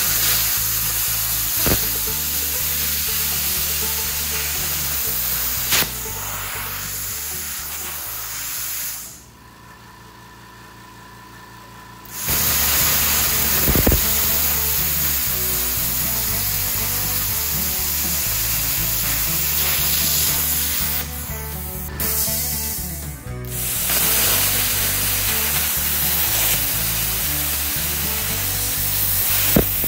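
BestArc BTC500DP plasma cutter torch cutting heavy steel channel at 25 amps and 25 PSI, a loud steady hiss of the air-plasma arc. The hiss stops about nine seconds in for some three seconds, then resumes, with two short breaks a little after twenty seconds.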